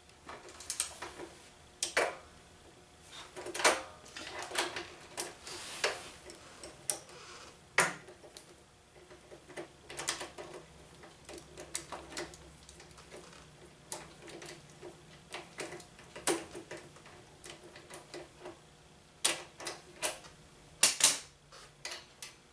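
Socket ratchet clicking in short, irregular runs as the 19 mm rear axle nut of a Honda CT70 is worked loose.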